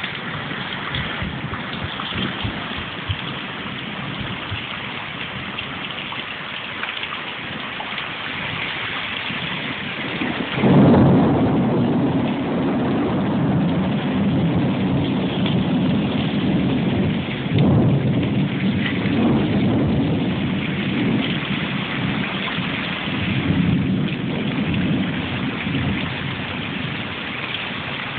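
Heavy rain of a thunderstorm pouring down onto paving. About ten seconds in, a loud thunderclap breaks and rolls on for some fifteen seconds, swelling again a few seconds later before it fades.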